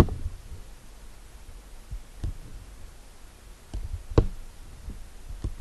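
Scattered computer mouse clicks and light knocks, a handful spread irregularly, the loudest about four seconds in.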